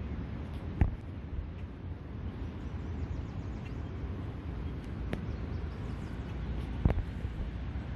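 Steady low outdoor rumble with three short sharp knocks: about a second in, around five seconds in and near the end.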